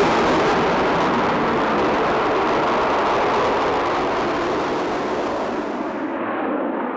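Twin RD-33 turbofans of a MiG-29OVT fighter in flight during a display, a loud steady jet roar that slowly fades and turns duller about six seconds in.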